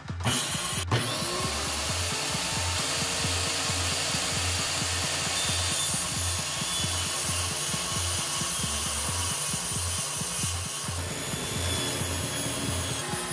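Electric power tool running steadily while working wood, starting suddenly just after the start, over background music with an even beat.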